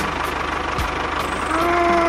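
Tractor engine sound idling with a fast, even low chug. A short held tone comes in about one and a half seconds in.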